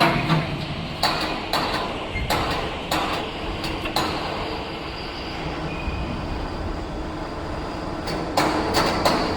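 Heavy steel machinery running in a fabrication shop: a steady rumble broken by irregular sharp metallic clanks, most of them in the first four seconds and again near the end. Typical of a welding rotator's rollers turning a steel shell.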